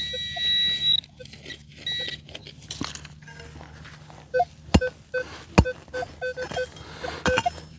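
Metal detector target beeps: a high steady tone for about a second at the start, then a run of short, quick, lower beeps in the second half. Two sharp knocks fall between the beeps.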